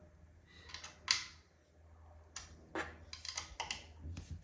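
Light clicks and scrapes of furniture hardware and wooden parts being handled during flat-pack assembly: one sharp click about a second in, then a quick run of clicks and taps through the middle.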